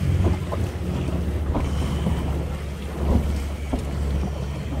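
A boat's engine running steadily under wind buffeting the microphone, with water splashing about the hull.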